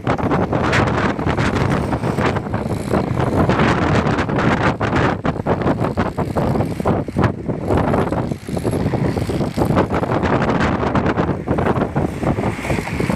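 Loud, gusty wind buffeting the microphone.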